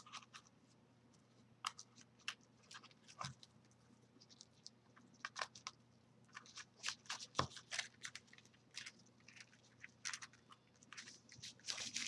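Faint rustling and light clicks of hands handling cords and paper bird cutouts while tying a knot, sparse at first and busier in the second half.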